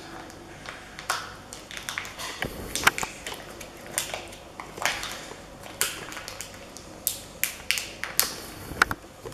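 Irregular short, sharp clicks and crackles, a dozen or more scattered through.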